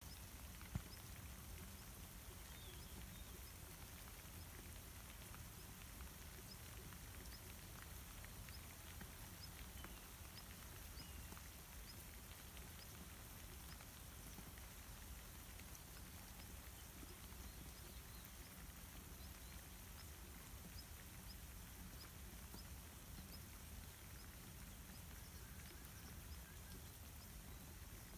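Light rain falling, a faint even hiss, with a faint high tick repeating about once a second and a single sharp click about a second in.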